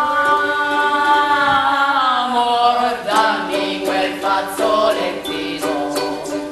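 A small group of women singing together, opening with one long held chord that sags slightly in pitch; about three seconds in, ukuleles start strumming under the singing.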